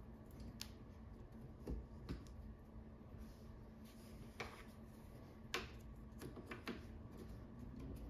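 Folding chair's mesh seat fabric being tugged and tucked around its frame by hand: a soft rustle with a few faint scattered clicks.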